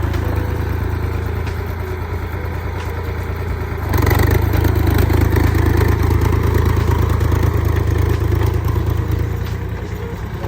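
Tractor engine running steadily, getting louder about four seconds in and holding there.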